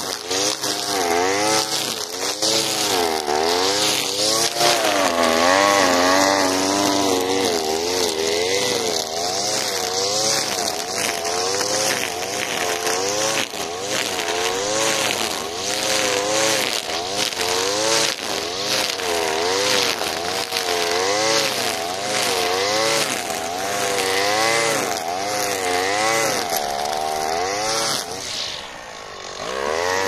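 Alpina Star 55DP petrol brushcutter's two-stroke engine running at high revs, its pitch dipping and rising about once a second as the 3 mm square nylon line is swept through tall grass, with a hiss of the spinning line over it. Near the end the engine drops in pitch briefly, then revs back up.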